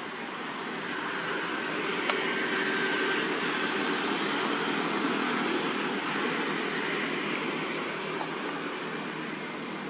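Steady background noise: an even rushing hiss with a faint high, steady drone, and a single sharp click about two seconds in.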